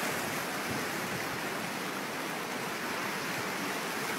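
A flash-flood torrent of muddy water rushing steadily, a continuous churning wash of water noise. The flood is in full spate, running bank to bank and still rising in strength.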